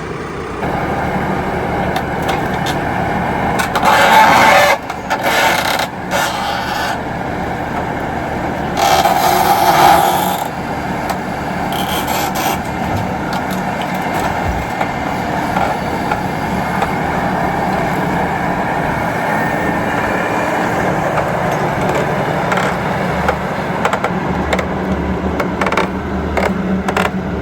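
An engine runs steadily. Two loud scrapes stand out above it, about four and nine seconds in.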